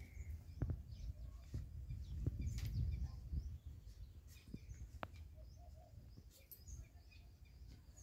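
Outdoor ambience: a low rumble on the microphone, loudest in the first few seconds, with a few faint clicks and faint bird chirps.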